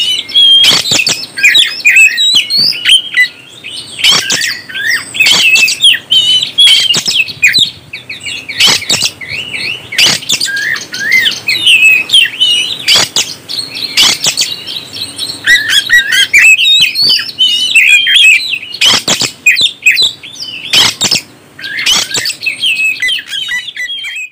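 Oriental magpie-robin (kacer) singing a fast, varied stream of chirps and whistled phrases, broken by sharp clicks every second or two.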